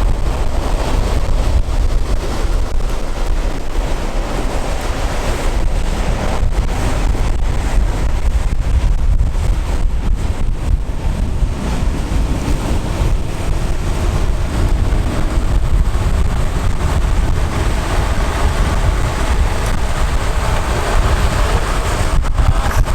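Steady wind buffeting the microphone at downhill longboarding speed, over the rolling noise of longboard wheels on asphalt.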